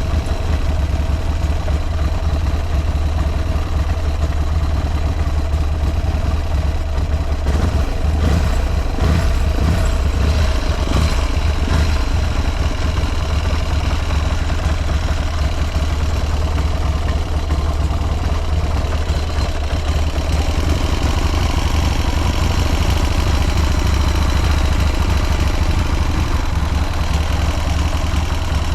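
A Buell M2 Cyclone's air-cooled 1203 cc V-twin idling steadily, running without abnormal noise.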